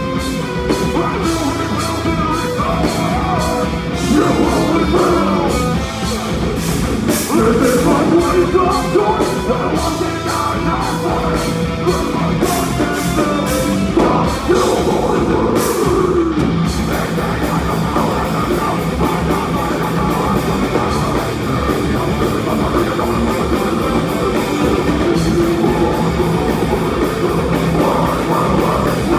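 A metalcore band playing live and loud: distorted electric guitar, drums and harsh vocals. The fast drum and cymbal hits ease off about halfway through.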